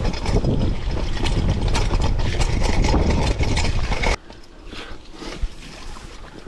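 Mountain bike rattling over rough trail: the chain and frame clatter with rapid clicking and rumbling noise on the camera mic. About four seconds in the noise drops off abruptly, leaving a few quieter clicks.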